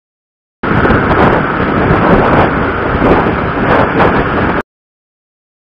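Loud wind rush and road noise on the built-in microphone of a helmet-mounted SJCam SJ4000 Air action camera while riding a motorcycle. It cuts in abruptly about half a second in and cuts off abruptly about a second before the end.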